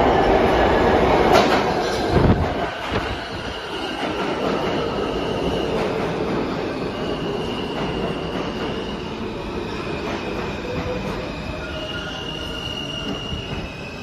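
R160A subway train pulling into an underground station and slowing down. It is loudest at first, with a couple of heavy knocks in the first two seconds, then settles into a steadier rumble with thin, high-pitched squeals coming and going.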